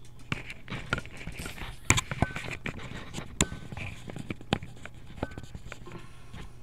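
Irregular sharp clicks and taps of something being handled at a desk, with a few short high beeps among them, over a steady low hum.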